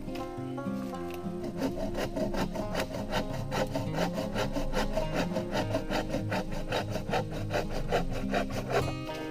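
Hand saw cutting through a dead branch in a steady back-and-forth rhythm of strokes. Background music plays over the sawing from about the start.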